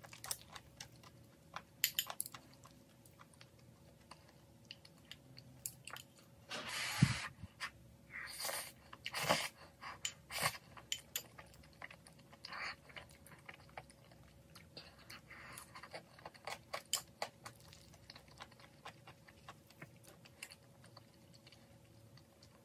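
Close-up eating sounds of a person chewing ramen porridge with egg and seaweed flakes, with many small clicks of chopsticks and a spoon against a ceramic bowl, and a louder noisy burst about seven seconds in.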